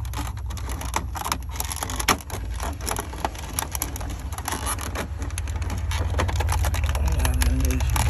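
Quick, irregular clicks and rattles of hard plastic as the truck's climate control panel is handled and worked loose in its dash opening, over a steady low hum that grows louder toward the end.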